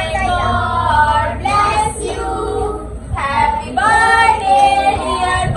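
A child and a woman singing, with long held notes that glide up and down in pitch.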